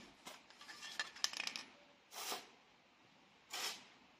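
Two short hisses of WD-40 aerosol sprayed through its straw onto seized bolts to free them up, after a second and a half of light metallic clicks and clinks.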